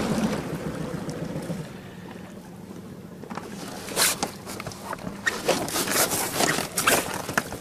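Outboard motor on an inflatable PVC boat throttled back, its sound falling away over the first two seconds. Then, from about four seconds in, a run of sharp knocks and clicks.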